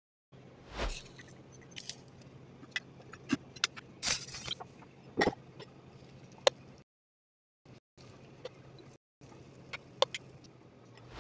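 Kitchen handling noises with a Dash mini waffle maker and a metal spoon: scattered clicks and taps as the lid is opened and batter is spooned onto the plates, with a brief louder rush about four seconds in, over a low steady hum. The sound cuts out completely twice for a moment.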